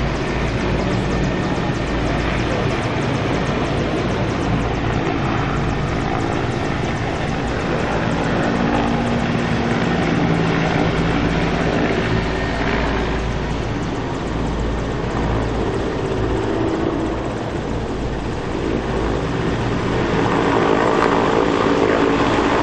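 Military helicopters running close by: steady, loud rotor and engine noise, heaviest in the low rumble.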